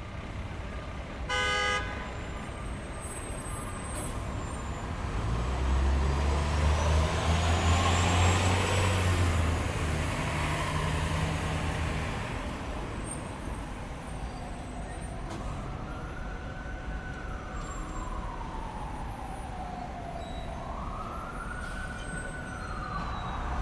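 City traffic: a car horn toots briefly about a second in, then a heavy vehicle's engine passes close, swelling and fading through the middle. In the second half an ambulance siren wails in slow rising and falling sweeps, twice.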